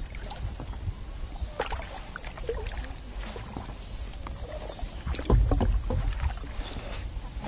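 Stand-up paddle board paddle strokes on calm lake water: soft splashes and drips in an uneven run. A brief low rumble on the microphone about five seconds in is the loudest sound.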